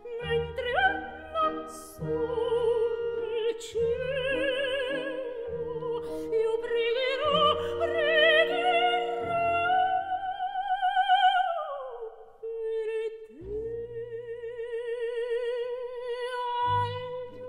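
Operatic soprano singing a bel canto mad-scene aria with wide vibrato and trilled, ornamented phrases over an orchestra's short chords. About twelve seconds in, a long note slides down and the orchestra briefly drops out. Then she holds a long note with vibrato as the chords return.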